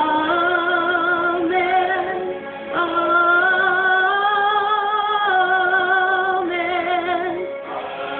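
A woman singing a slow gospel song over music, holding long notes with a wavering vibrato, with a short break about two and a half seconds in.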